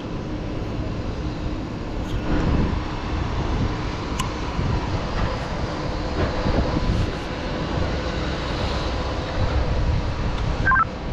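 Steady low rumble of wind and running machinery high up on a tower crane, swelling and easing irregularly, with a faint steady hum underneath and a single light click about four seconds in.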